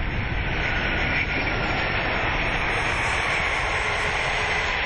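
Steady rush of airflow and engine noise on an Airbus A380 flight deck at touchdown, with the thrust levers retarded to idle.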